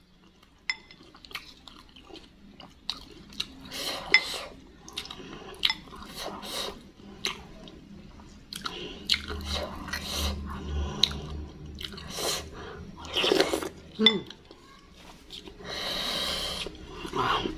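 Close-up eating sounds: chewing and wet mouth noises over meatball soup and chicken feet. Repeated short clicks of wooden spoon and fork against a ceramic bowl come throughout.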